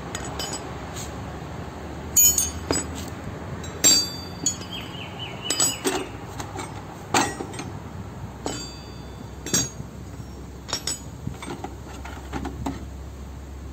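Steel T-handle wrenches clinking against each other and against a concrete floor as they are pulled from the jug toolbox's holder and laid down: a dozen or so sharp metallic clinks, some with a short ring.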